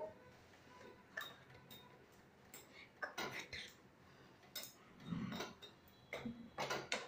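Steel ladle clinking and scraping against a metal kadai as Maggi noodles are stirred in water: a run of faint, irregular clinks and scrapes.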